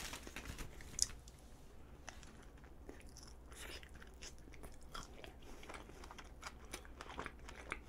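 A plastic wrapper crinkling near the start as a strawberry chapssal-tteok is unwrapped, then faint biting and chewing of the soft sweet rice cake, which has red bean paste and a whole fresh strawberry inside.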